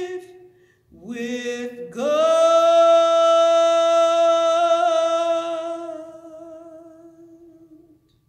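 A woman singing a spiritual a capella into a microphone, closing the song. A held note stops, then after a brief breath she sings a short rising phrase into a final long held note that fades away near the end.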